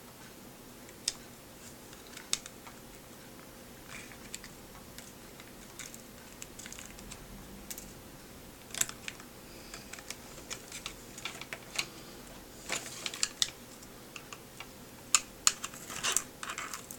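Scattered sharp plastic clicks and light taps as the housing of iWear AV230 XL video glasses is pried apart and its parts handled, sparse at first and coming thick and fast in the last few seconds.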